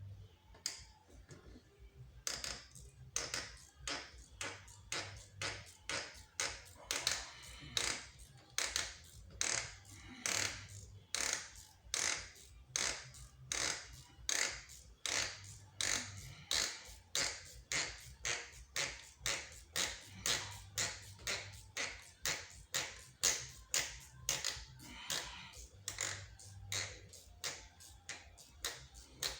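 Hand ratchet wrench clicking in short, even strokes, about two a second, as fasteners are worked on a BMW 3.0 diesel engine during glow plug replacement. The clicking starts about two seconds in.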